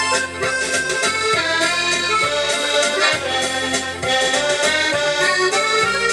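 A waltz played on a Yamaha PSR-S670 arranger keyboard: a melody with chords over low bass notes that change about once a second.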